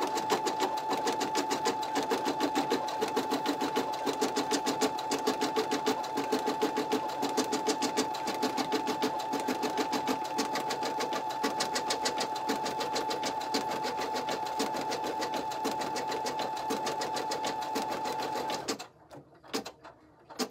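Home embroidery machine stitching a single line of an in-the-hoop design at a steady speed: rapid, even needle strokes over a constant motor whine. It stops suddenly near the end, followed by a few faint clicks.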